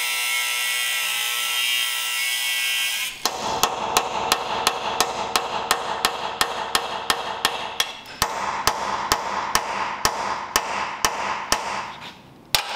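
Angle grinder cutting into a steel rivet head on a truck frame for about three seconds, then a hammer striking a punch set on the rivet in steady blows, about three a second, to drive the rivet out of the frame.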